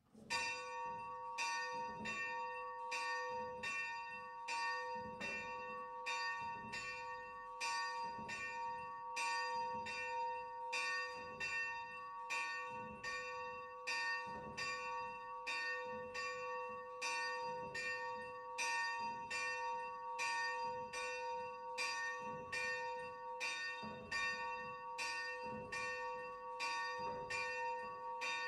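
A small bronze church bell, the 45 kg soul bell tuned to b2, swinging and ringing with quick, evenly repeated strokes of its clapper. It starts right at the beginning with no run-up, and its bright tones hang on between strokes.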